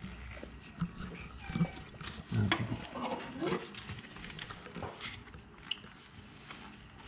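Scattered light clicks and clinks of a metal band-type oil-filter wrench being handled around an engine bay. Brief low, muffled voice sounds come between about two and four seconds in.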